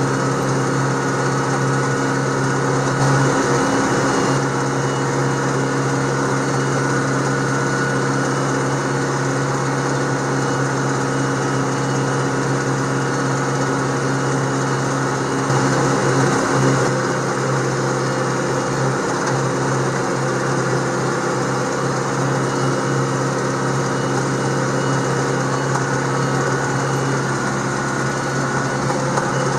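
Green John Deere tractor's engine running steadily while it drives along a rough grassy track, heard from the driver's seat. It rises briefly a little louder about three seconds in and again around sixteen seconds in.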